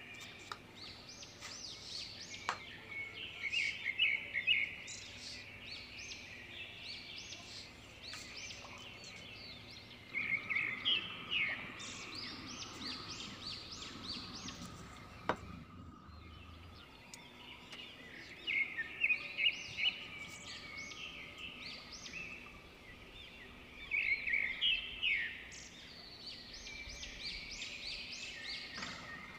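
Birds chirping and twittering in repeated bursts of quick high chirps, a burst every several seconds over a faint steady background.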